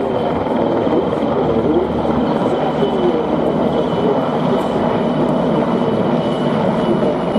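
Formation of four Polish-built military helicopters flying overhead, a loud, steady noise of rotors and turbine engines.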